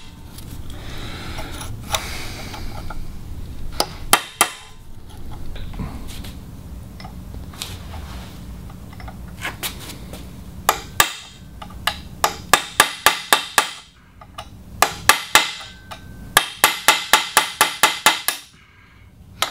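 Hammer striking a chisel set against a seized Woodruff key on a Yamaha V6 outboard's drive shaft, metal on metal. A few scattered blows at first, then rapid runs of taps through the second half.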